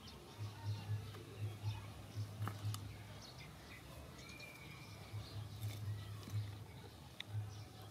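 Faint, short, high squeaky animal calls, with one longer held high note about halfway through, over a low, irregular rumbling.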